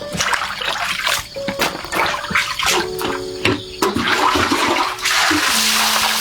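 Water running and splashing, turning into a steady gush about four seconds in, over background music with held notes.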